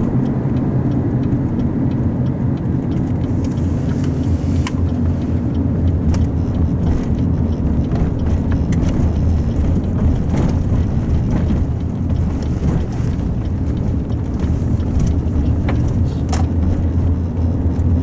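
Steady engine and road rumble inside a moving car's cabin, with a few faint clicks.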